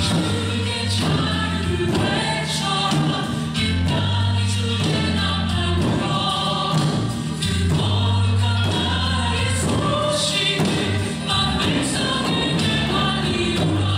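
Recorded music with choir-like singing over a steady low bass, with sharp drum strikes in it, accompanying a Korean drum dance.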